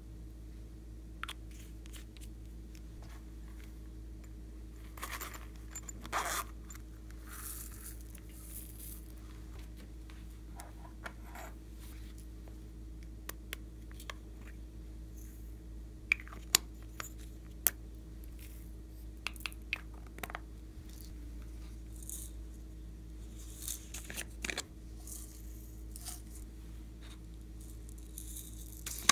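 Small plastic containers and bottles being handled and opened: scattered clicks, taps and light rustles, the sharpest a few quick plastic snaps about sixteen to eighteen seconds in, over a steady low hum.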